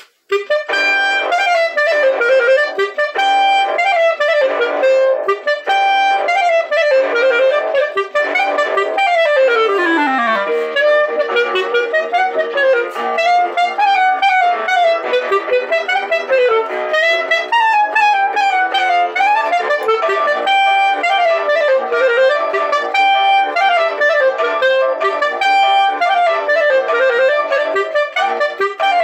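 Clarinet playing a fast, continuous melody full of quick runs, beginning just after the start, with a long descending run about ten seconds in.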